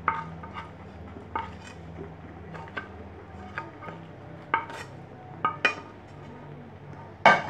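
Spoon clinking and knocking against a cooking pan as pieces of roasted chicken are added to a thick masala gravy: about a dozen scattered clinks with a little ring, the loudest near the end.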